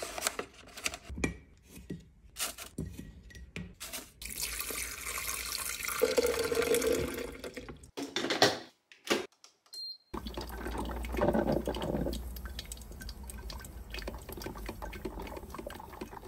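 Clicks and paper rustling as a paper filter is put into a drip coffee maker. Then water pours for a few seconds. After a short break, the machine brews with a steady hiss and a low hum while coffee drips into its glass carafe.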